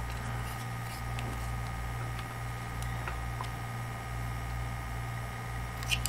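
Faint clicks and taps of clear acrylic case panels being handled and unclipped, over a steady electrical hum.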